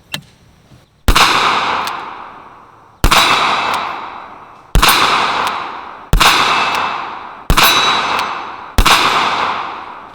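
Smith & Wesson Governor revolver fired six times with .45 ACP rounds, emptying its six-shot cylinder. The shots come one to two seconds apart, each followed by a long fading echo.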